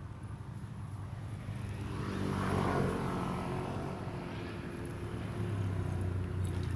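A motor vehicle's engine running steadily, swelling louder about two to three seconds in as it passes and easing off again.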